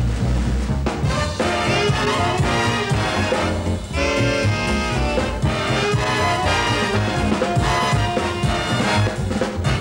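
Instrumental music led by brass, trumpets and trombones with a band behind them, playing continuously.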